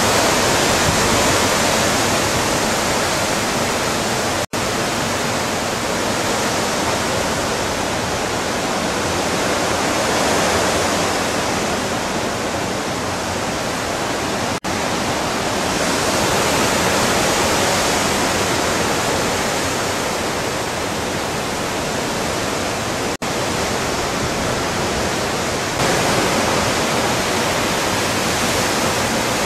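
Hurricane-force wind rushing through trees, a loud steady noise that swells and eases slowly and cuts out for an instant three times.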